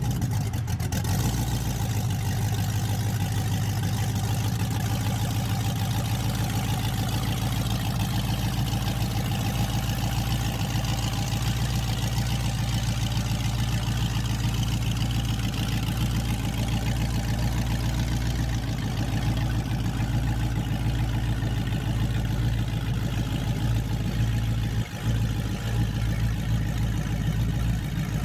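A vehicle engine running steadily with an even low hum, dipping briefly near the end.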